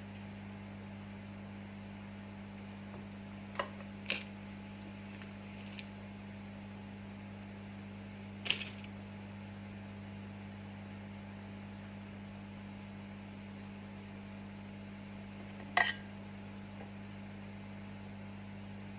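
Steady low electrical hum with four brief, light metallic clinks of small hand tools spread through it.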